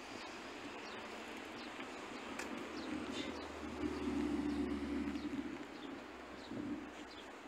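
City street traffic noise with a low hum that swells and fades as a vehicle passes near the middle, and short high bird chirps now and then.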